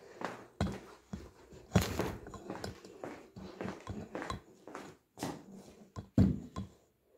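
Handling noise from the camera being carried: a quick series of knocks and rubs, with two louder thumps, one about two seconds in and one near the end.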